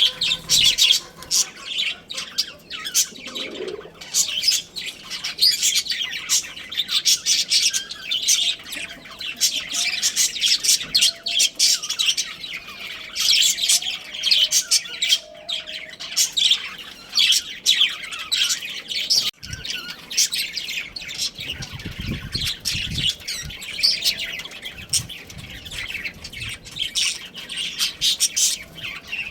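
Budgerigars chattering, a dense, continuous stream of rapid high chirps and warbles from several birds at once.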